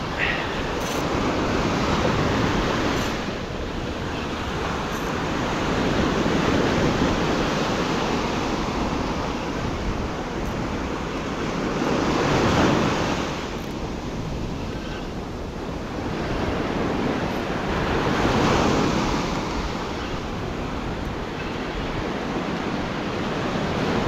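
Ocean surf breaking and washing up a sandy beach, the rush of water swelling and fading every several seconds.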